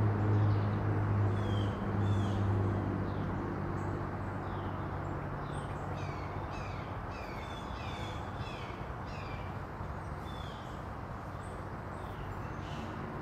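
Woodland birds chirping: repeated short, high, downward-sliding notes, coming quickest in a run near the middle, over a steady background hiss. A low hum is present at the start and fades out within the first few seconds.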